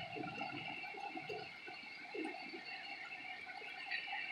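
Heavy rain falling steadily, a faint even hiss.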